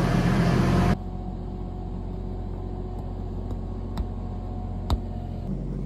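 Riding lawn mower's small engine running, cut off abruptly about a second in. After that a faint steady hum, with a few sharp thuds of a soccer ball being kicked, the loudest near the end.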